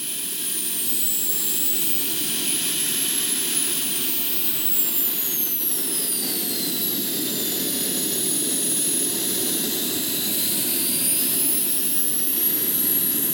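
Twin JetCat P120 model jet turbines running at low power: a steady rush under a high whistling whine. One whistle slides slowly down and then climbs back up near the end while another holds high.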